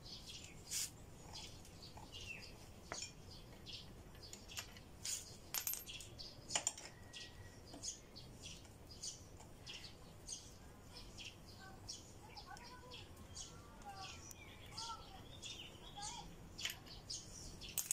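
Faint, irregular metallic clicks and clinks of a 15 mm box spanner loosening the bolts on a motorcycle's fork clamp. Birds chirp faintly in the background, mostly in the second half.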